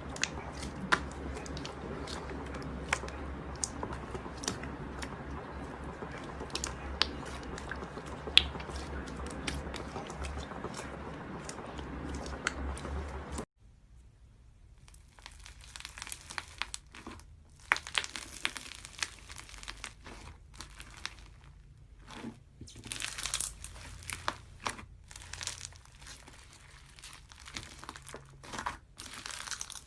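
Slime being squeezed and pressed by hand: a dense stream of small sticky pops and clicks over a low hum. About halfway through, a cut leads to bursts of crisp crinkling and crunching.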